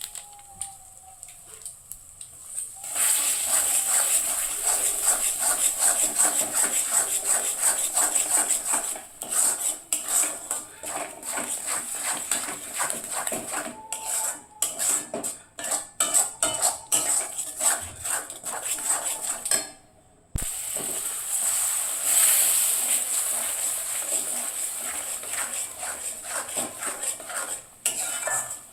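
A metal utensil stirring and scraping in a cooking pan: a fast run of clinks and scrapes over a high hiss, starting about three seconds in. It stops briefly about two-thirds of the way through, then carries on.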